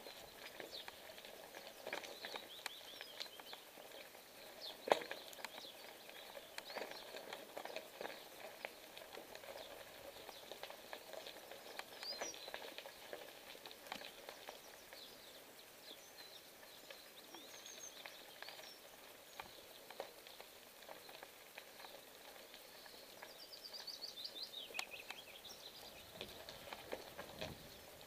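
Bicycle tyres crackling and crunching over a loose gravel track, with scattered small clicks and knocks from the bike, one stronger knock about five seconds in. Songbirds chirp now and then, with a quick descending trill near the end.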